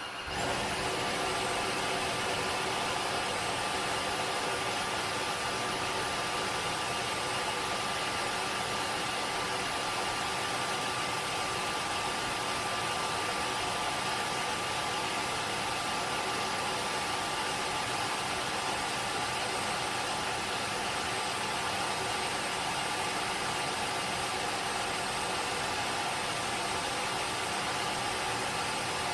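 Tineco Floor ONE S7 PRO cordless wet-dry floor cleaner in the air-drying stage of its self-cleaning cycle, blowing air over the brush roller. It makes a steady rush of air with a thin, even whine.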